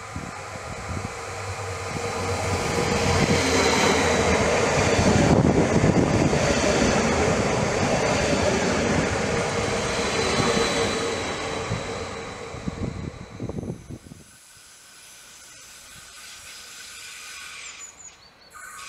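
Stadler FLIRT electric multiple unit passing close by: a rumble of wheels on rails with a steady high whine, growing louder as it approaches and fading as it goes. About 14 seconds in, the sound drops abruptly to a faint outdoor background.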